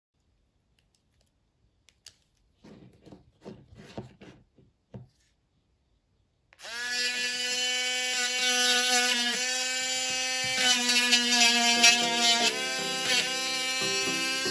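A few faint clicks and knocks of small parts being handled, then a small high-speed power tool starts suddenly and runs with a steady whine.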